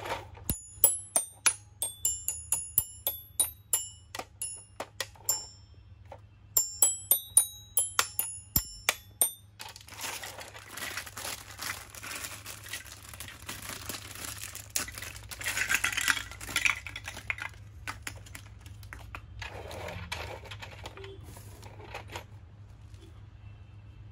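Toy xylophone's metal bars struck with a small mallet: a quick run of ringing notes, two to three a second with a short pause, stopping about nine seconds in. Then a plastic bag crinkles and rustles as it is handled.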